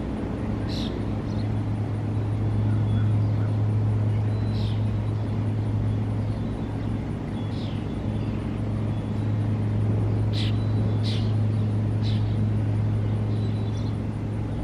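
A steady low mechanical hum, like an idling engine, with a few short, high chirps from birds scattered through it.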